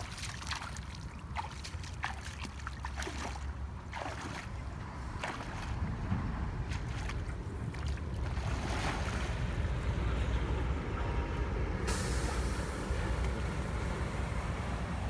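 Wind rumbling on the microphone, with a few splashes of water as a person wades into a river over the first five seconds. A louder hiss sets in about twelve seconds in.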